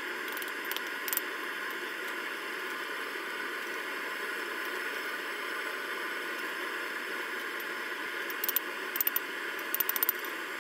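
Light hammer blows on rebar tongs resting on a steel-plate anvil, over a steady hiss. There are two blows about a second in, then a quick run of five or six blows near the end.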